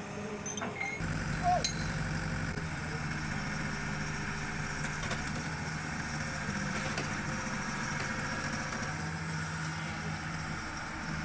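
Old Sumitomo hydraulic excavator's diesel engine running steadily as it works. About a second and a half in, two sharp knocks stand out above the hum.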